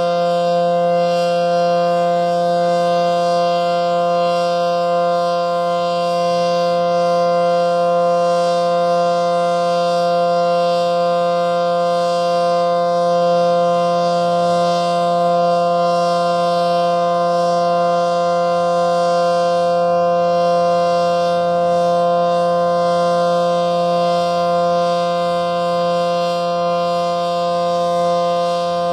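ACA Allertor 125 rotating electromechanical siren with 9/12 ports, sounding a steady dual-tone full-alert signal at constant pitch. The loudness holds level with no sweep of rotation because the siren's rotator isn't turning, and its motor is still wired in reverse.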